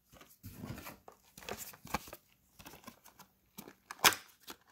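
Packaging rustling and crinkling as gloved hands take out and handle small glass gel polish bottles, a string of short scratchy rustles with one louder sharp sound about four seconds in.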